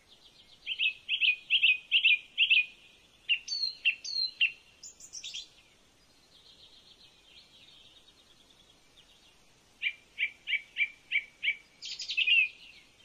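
Birds calling: a run of five sharp repeated notes, then a few looping whistled calls, a faint high trill, and another run of about six sharp notes near the end.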